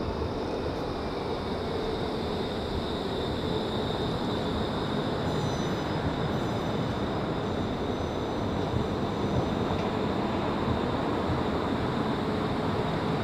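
Electric tram passing close below: a steady rumble of steel wheels on rails with a high whine held throughout.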